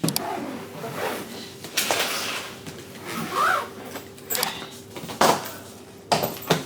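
Objects being handled indoors: a series of knocks and clatters, with a brief squeak about three and a half seconds in.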